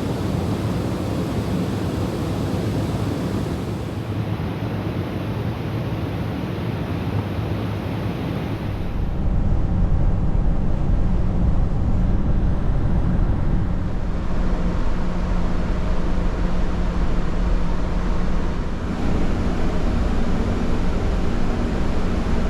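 Steady wind and sea wash, with the low drone of a car ferry's engines at sea.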